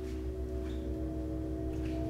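Ambient horror score: a low, steady drone under several held ringing tones.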